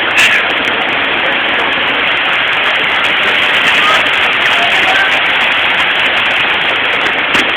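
Waterfall rushing, a loud steady hiss of falling water, with a short bump just after the start and another near the end.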